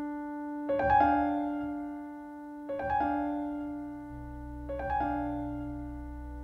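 Slow, sparse piano music: a pair of notes struck about every two seconds and left to ring out, with a low steady drone coming in about four seconds in.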